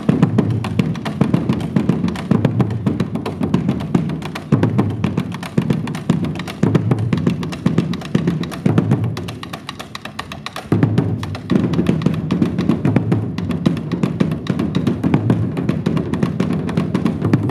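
Afro percussion ensemble playing a fast, dense rhythm on rope-tuned drums struck with sticks, with deep drum beats recurring. The playing thins out for a moment just before the middle and comes back in full at about eleven seconds.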